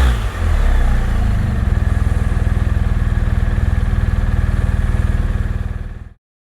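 Motorcycle engine running steadily with a rapid, even pulse, picked up by a microphone inside the rider's helmet. The sound cuts off abruptly near the end.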